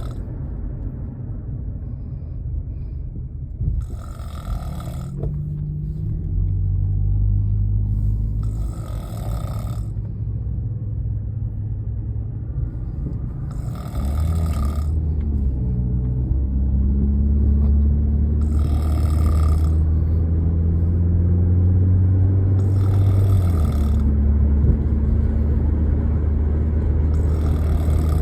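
A woman snoring in a car's cabin, one breathy snore about every four and a half seconds, over the low hum of the car's engine and road noise. The engine hum steps up about six seconds in and again about fourteen seconds in.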